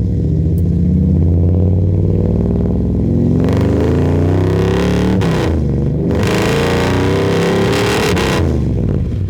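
1955 Chevrolet Del Ray's 383 V8, with headers and an aftermarket exhaust, accelerating hard. The engine note climbs from about three seconds in, drops a little past five seconds, climbs again, then eases off near the end.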